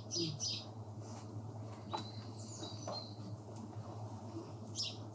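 Faint bird chirps over a quiet outdoor background with a steady low hum; a thin high call sounds about two seconds in.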